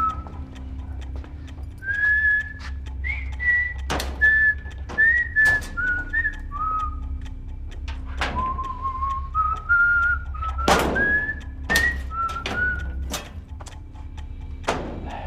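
A person whistling a stepwise tune, the notes held briefly and rising and falling, broken by several sharp knocks, the loudest about eleven seconds in.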